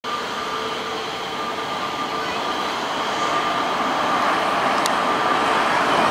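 Boeing 777-300ER on final approach, its GE90-115B turbofans giving a steady jet rumble with a faint whine, growing louder as the airliner comes closer.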